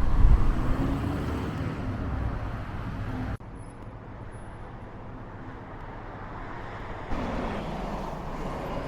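Road traffic: a vehicle passing close with a low rumble over the first few seconds, then quieter steady traffic noise. The sound drops off abruptly about three and a half seconds in and steps up again near seven seconds.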